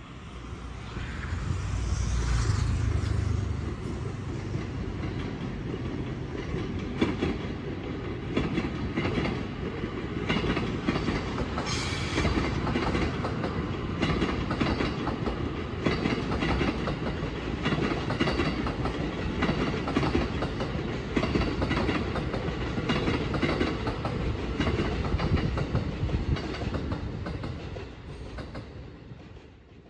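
Electric passenger train running past on the station tracks, its wheels clattering over the rail joints and points in a long, uneven run of clicks over a low rumble. It swells in about two seconds in and fades away near the end.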